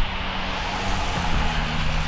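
Jet airliner engines running, a steady rushing noise with a low hum that drops in pitch a little over a second in.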